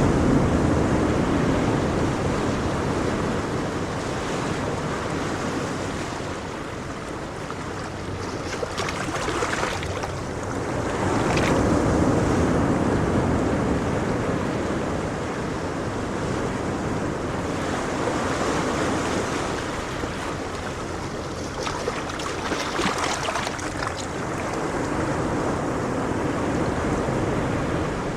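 Gentle ocean waves washing on the shore, the surf swelling and ebbing every several seconds with a hiss of foam as the bigger waves break.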